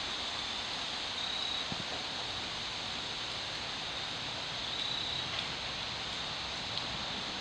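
Steady outdoor background hiss with a few faint, isolated taps: about two seconds in, just past five seconds, and near the end.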